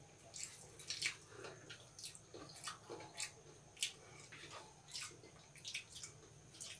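Eating rice by hand: fingers mixing and mashing rice on plastic plates, and mouths chewing, give a faint, irregular scatter of soft wet clicks and squelches.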